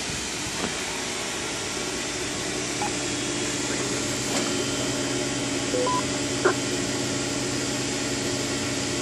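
Steady hiss and low hum from a CB radio station running through a switched-on Xforce 400 linear amplifier. A short two-note electronic beep, low then high, sounds about six seconds in, followed by a click.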